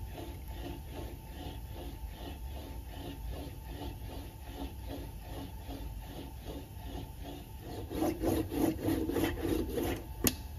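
Aluminium sheet, 1.2 mm thick, rolled back and forth between the steel wheel and anvil of a benchtop English wheel. It makes an even, rhythmic rubbing of about three strokes a second, which grows louder for the last couple of seconds, and there is one sharp click near the end.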